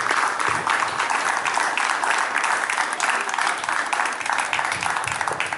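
Audience applauding: many hands clapping in a dense, steady patter that starts to thin just as it ends.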